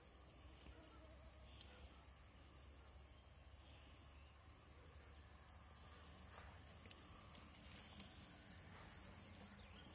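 Near silence: faint outdoor ambience with a thin steady high tone and a few short high chirps, more of them in the last three seconds.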